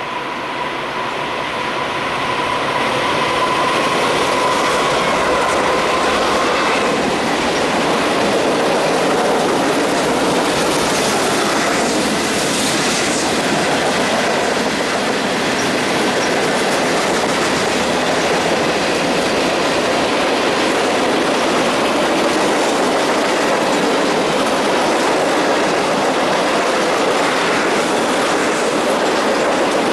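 Norfolk Southern freight train passing close by, a steady loud rumble and clatter of wheels over the rails as covered hoppers and gondolas roll past. The sound grows over the first few seconds as the train arrives, with a thin high tone that fades out about seven seconds in.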